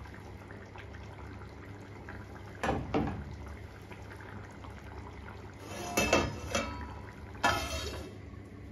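Prawn curry simmering in a clay pot, with a knock about three seconds in. Near the end a stainless steel lid clatters and rings twice as it is handled and set onto the pot.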